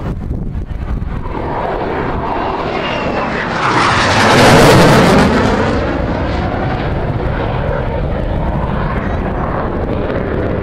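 Aircraft flying past overhead: its engine noise swells to a loud peak about four to five seconds in, then fades to a steady drone. A low wind rumble on the microphone runs underneath.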